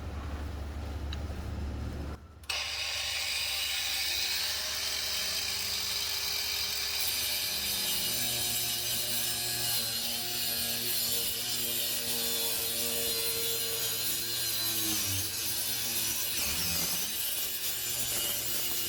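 Electric power saw running and cutting through a wooden board, its motor pitch shifting as it works through the cut.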